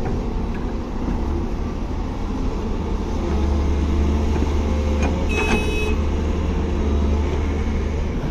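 Excavator's diesel engine running with a steady deep drone, a little louder from about three seconds in. A brief high-pitched squeal sounds about five seconds in.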